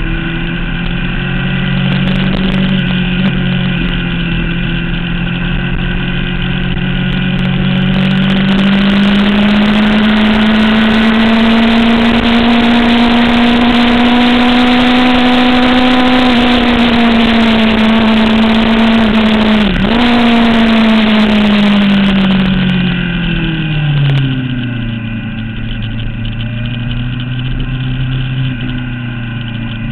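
Sport motorcycle engine heard from an onboard camera at speed: the note climbs slowly under throttle while wind rush builds, dips sharply for a moment about two-thirds through, then falls away as the bike slows and settles to a lower steady note near the end.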